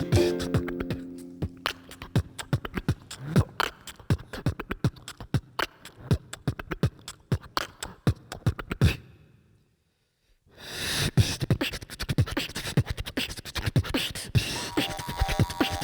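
Percussion-heavy instrumental break in the music: a dense run of quick beat strikes with few held notes. It stops for about a second midway, then starts again, and pitched instrument notes return near the end.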